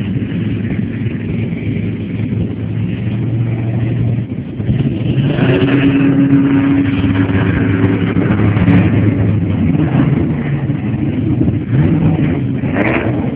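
Jet boat engine running, picking up revs about five seconds in and holding there.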